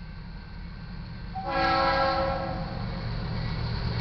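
Approaching diesel locomotive, a GE Dash 8-40CW, sounding its multi-chime air horn for a grade crossing: one blast begins about a third of the way in, over the low rumble of the approaching train.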